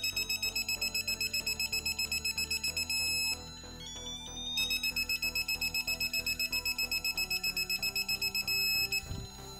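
Digital torque wrench's target alarm: a rapid high beep, about ten pulses a second, for roughly three seconds. After a short gap of rising tones it beeps again for about four seconds, and a low thump follows near the end. Background music plays underneath.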